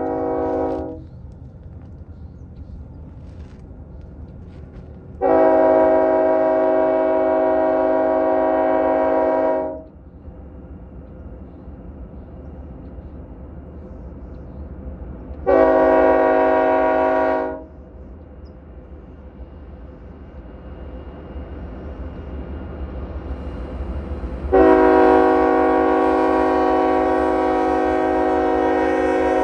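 BNSF diesel locomotive's multi-chime air horn sounding the grade-crossing signal over a steady low rumble: a blast that ends about a second in, then a long blast, a short blast and a final long blast near the end (long, long, short, long).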